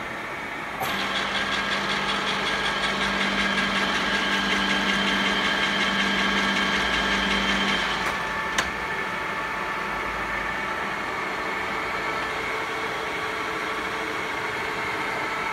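Huron MU 55 milling machine running: its motor and gear train come on about a second in with a steady whine of several tones. About halfway through the sound drops to a quieter, steady hum, and a single sharp click follows shortly after.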